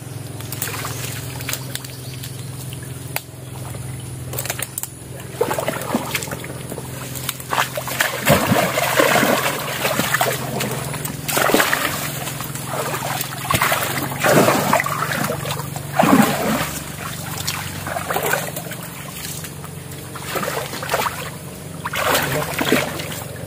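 Muddy water splashing and sloshing as a man wades through a shallow stream and gropes with his hands in the mud and water, hand-fishing for catfish. The splashes come irregularly, heaviest through the middle stretch.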